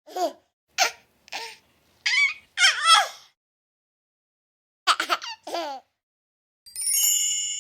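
A baby laughing and squealing in short bursts, with a pause of about a second and a half before a few more. Near the end a bright, ringing chime starts and keeps ringing.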